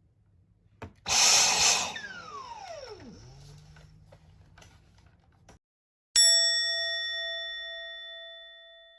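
A second of loud rushing noise that dies away with a falling whine and a low hum, then a single bell-like ding that rings out and slowly fades.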